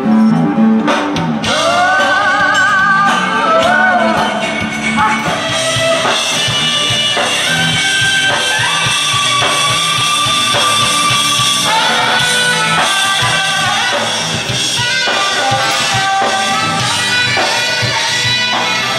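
Music with a singing voice, the notes held long, one with a wide vibrato a couple of seconds in.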